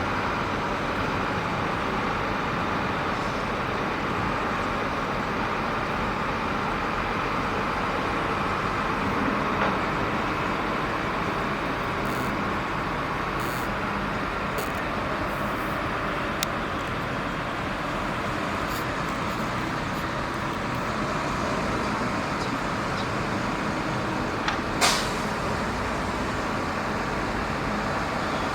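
Heavy diesel machinery running steadily, with a brief sharp noise near the end.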